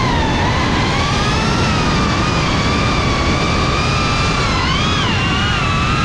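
GEPRC CineLog35 FPV drone's motors and propellers whining in flight, the pitch wavering with throttle and dipping then rising again about five seconds in, over a steady rush of air.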